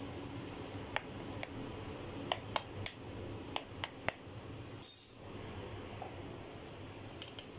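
A run of light clicks and clinks, about nine in three seconds, over a steady background hum, with a brief hiss about five seconds in.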